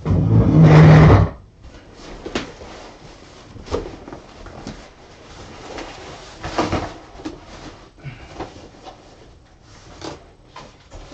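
A large cardboard guitar shipping box being handled: a loud scraping thump lasting about a second at the start, then scattered knocks, taps and rustles as the box is opened and searched.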